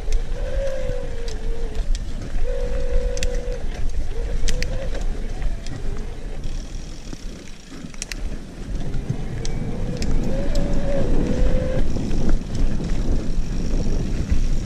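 Mountain bike ridden fast down a dirt forest trail: a steady rumble of tyres and wind, with sharp clicks and knocks from the bike rattling over roots and rocks. An on-and-off whine wavers up and down in the first few seconds and again about ten seconds in.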